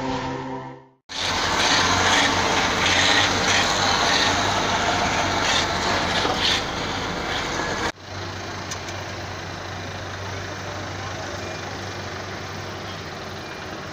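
A brief intro chime fades out about a second in. Then comes a loud, steady rushing noise of outdoor port ambience, which cuts near eight seconds to a quieter steady din of truck and car engines with a low hum.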